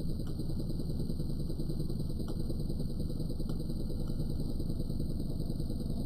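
Modified microwave-oven transformer with a heavy 4 AWG secondary humming steadily under heavy load, driving enough current through a nail to make it glow. A few faint clicks.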